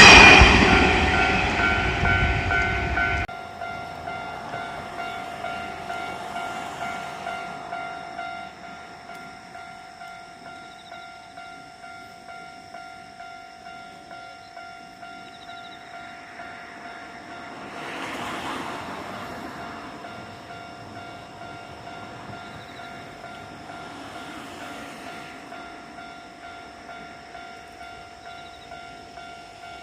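Japanese railroad crossing warning bell ringing its steady repeated "kan-kan", about two strikes a second. For the first three seconds a passing Kintetsu train drowns it out, then the train noise cuts off sharply. A brief wider rush of noise swells and fades about eighteen seconds in.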